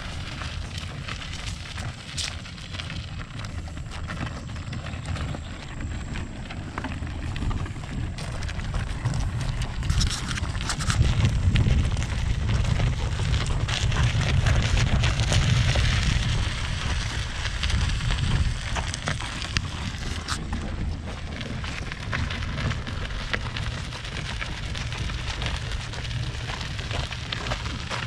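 Kayak cart wheels, loaded with two kayaks near the cart's 150-pound rating, rolling and jolting over rough, rocky ground: a continuous low rumble with crackling and scattered knocks, loudest from about 11 to 16 seconds in.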